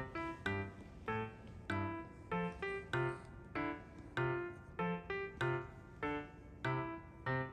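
Background music: a piano playing a light melody of steady, evenly spaced notes.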